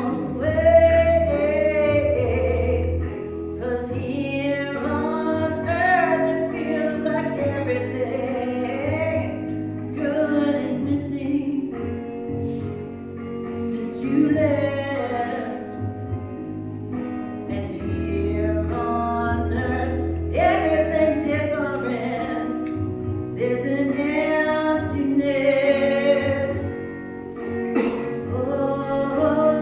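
A woman singing a slow song into a microphone over sustained instrumental accompaniment with a low bass line.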